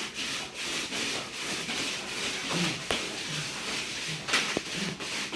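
Frisbees sliding back and forth across the floor under the feet during frisbee runners, mountain climbers done from a low plank with the feet on sliding discs. A steady scraping swish that repeats about twice a second.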